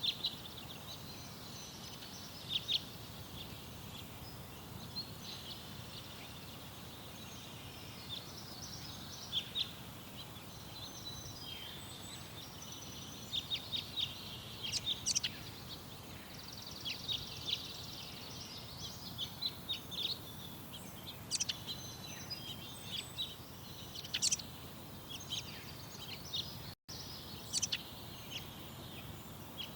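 Garden songbirds chirping and singing in many short, high calls and trills over a steady low background rumble, with the sound cutting out for an instant near the end.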